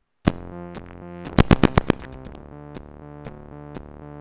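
Electronic music coded live in Sonic Pi, playing over a lecture hall's loudspeakers: sustained synth chords over a drum pattern with a steady tick about twice a second, and a quick run of about six loud drum hits around a second and a half in. The bass is missing, which the presenter blames on the hall's speakers.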